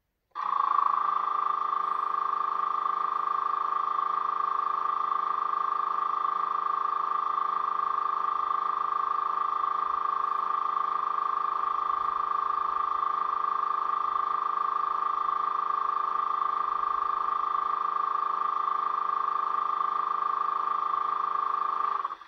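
Steady, unchanging hum from a Bachmann Class 85 model electric locomotive's ESU V4 sound decoder, played through its small 20 x 40 speaker. It switches on abruptly and cuts off abruptly near the end.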